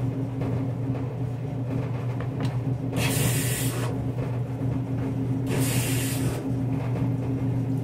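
A steady low hum, with two short bursts of hissing, each under a second, about three and five and a half seconds in.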